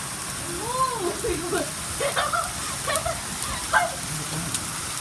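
Steady heavy rain mixed with hail, with scattered sharp ticks of hailstones striking.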